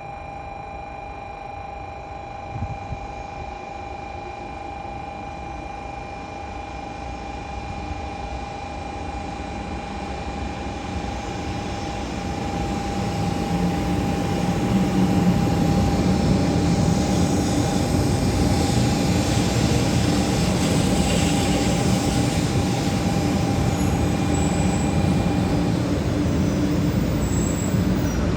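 500 series Shinkansen train pulling into the station: its running noise builds steadily over about fifteen seconds and then holds loud as it rolls along the platform. A steady high tone runs under it and stops near the end.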